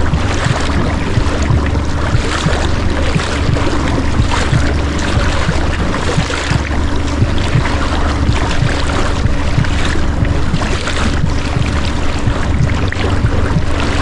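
Small inflatable boat under way: a steady motor hum over continuous wind and water noise with a deep rumble.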